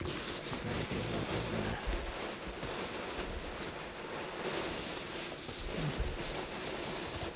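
A hand rummaging through a box full of packing peanuts: a continuous rustling shuffle of the loose fill, with a couple of dull bumps as the box is handled.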